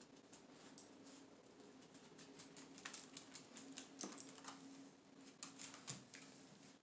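Faint, irregular clicking and tapping of a dog's claws on a hardwood floor as it walks and turns, with a few louder clicks near the middle and toward the end, over a low steady hum.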